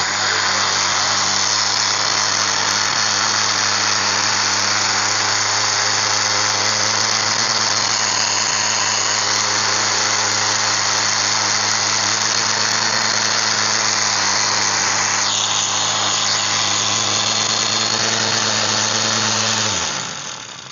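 Old Maktec hand angle grinder running steadily at full speed during a test, with a loud high-pitched whine and hum. It is switched off near the end and spins down. The grinder is faulty: it sparks inside the motor and has the rough, snoring sound ('ngorok') of combined damage to its stator, armature and bearings.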